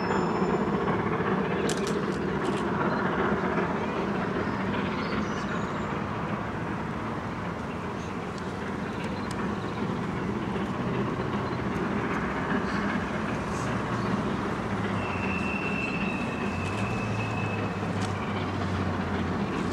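LNER K4 three-cylinder 2-6-0 steam locomotive working uphill with a train, approaching steadily. About fifteen seconds in, a single high steady tone sounds for about two and a half seconds.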